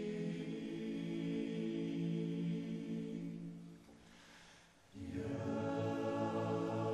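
Klapa, a Croatian a cappella vocal ensemble, singing held chords in close harmony. The chord fades out about three and a half seconds in, and after a brief pause the voices come back in on a new phrase with a low bass part.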